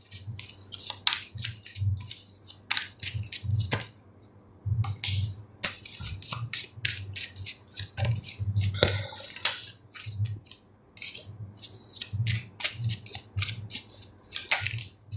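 A deck of tarot cards being shuffled by hand: a rapid, irregular run of clicks and soft slaps as cards are slid through the deck, with a short pause about four seconds in.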